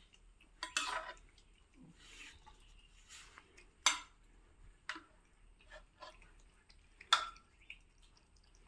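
Several cats eating rice off a plastic plate: scattered clicks and short wet chewing and smacking sounds, with the sharpest knocks of the plate about a second, four seconds and seven seconds in.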